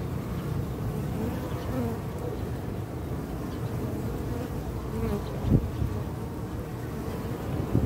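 A colony of European honey bees (Apis mellifera) buzzing in a steady mass around an open hive box whose frames are exposed, with single bees wavering in pitch as they fly past. A brief louder burst comes about five and a half seconds in.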